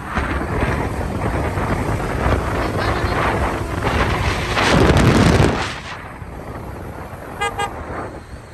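Moving motor vehicle's road and wind noise, loudest about five seconds in and dropping off a second later, with a short horn toot near the end.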